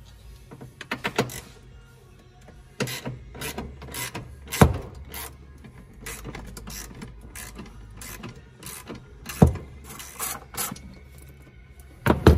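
Hand ratchet wrench clicking in short runs while the ECU's mounting bolts are being undone. Two sharp metallic knocks, about five seconds apart, are the loudest sounds.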